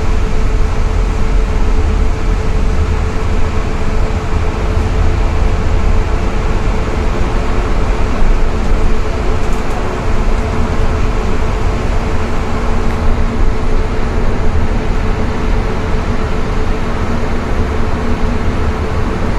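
Steady low rumble and hum of a moving road vehicle heard from inside, with tyre noise on a wet road and a constant drone.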